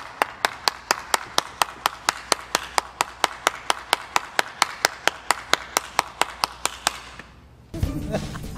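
One person clapping hands at a steady pace, about four to five claps a second. The clapping stops about seven seconds in, and louder background sound comes in near the end.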